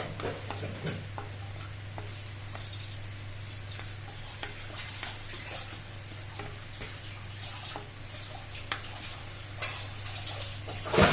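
Bay leaf and cloves sizzling in hot ghee in a pan, with light scattered clicks of stirring over a steady low hum, and one sharp clatter near the end.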